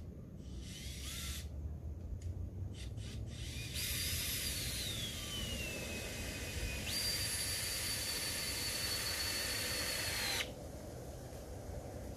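Power drill driven into the wooden fence rail: a few short bursts, then a long run whose whine sags in pitch as it comes under load, picks up again and holds steady, and stops suddenly near the end.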